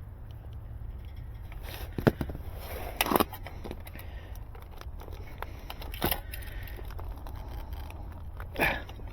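Fiber optic cable being cut and handled with hand tools: a few sharp snips and clicks, about 2, 3, 6 and 8.5 seconds in, over a steady low hum.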